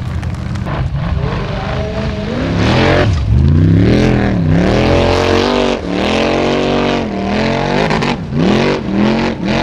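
Formula Offroad hill-climb buggy's engine revving hard, its pitch rising and falling again and again as the driver works the throttle, with brief lifts off the throttle near the end.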